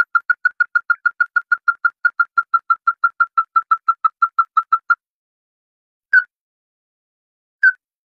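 Ruddy-breasted crake calling: an even, fast series of short clipped notes, about seven a second, that stops about five seconds in, followed by two single notes.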